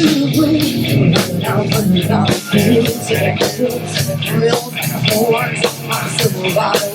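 Live rock band playing amplified music, with guitar over a steady drum beat.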